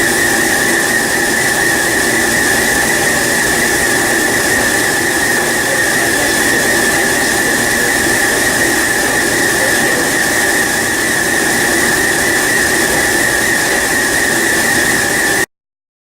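Factory production-line machinery running: a loud, steady noise with a constant high whine that ends abruptly near the end.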